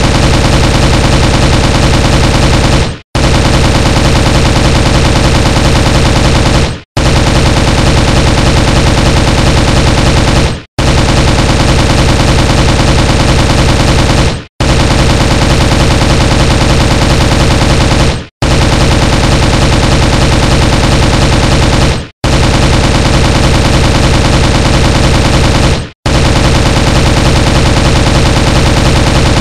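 M16 rifle firing long bursts of rapid automatic fire. Each burst lasts about four seconds and ends with a short fading echo before the next begins, repeating over and over at an even pace.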